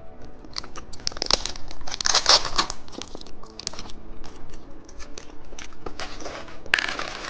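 Plastic candy packaging crinkling and tearing as it is handled and opened, in irregular rustles and clicks, loudest about two seconds in and again near the end.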